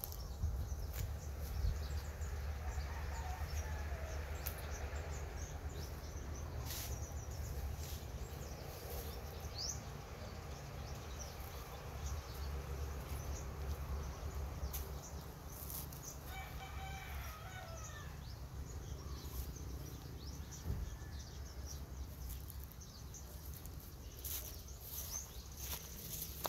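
Outdoor ambience with birds calling, among them a short rising chirp and, later, a quick run of repeated short calls, over a low steady rumble with scattered sharp clicks.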